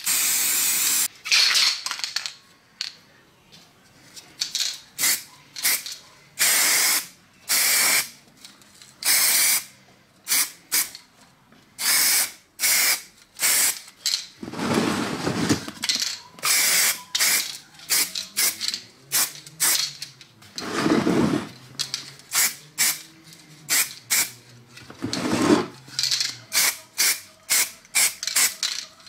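Aerosol spray paint cans of primer and paint hissing in many short bursts, each a second or less, with brief gaps between passes. Three duller, lower noises come in the second half.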